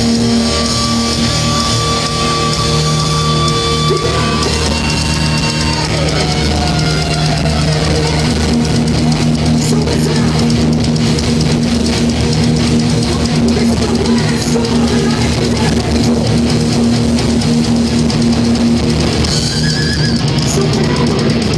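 Thrash metal band playing live and loud: heavily distorted electric guitars over a drum kit.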